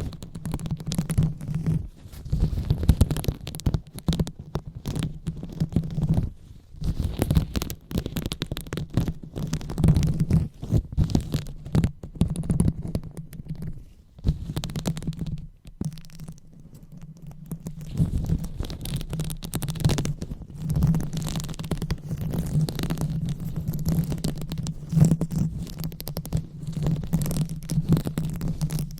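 Fingers rubbing and scratching directly on a microphone, ASMR 'brain massage' style: a dense, irregular low rumbling with crackly scratches. It eases off briefly a little past the middle, then carries on.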